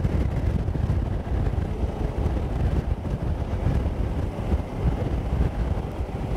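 Wind noise on the microphone of a KTM 990 SMT motorcycle on the move, a steady low rush with the bike's V-twin engine running underneath.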